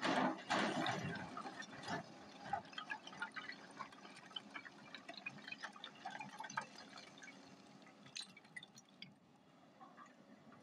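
Hyundai 210 excavator's bucket digging into a heap of flat quarry stone: a loud scrape and clatter in the first second, then many small clinks and rattles of loose stones sliding down the pile, over a faint steady diesel engine hum.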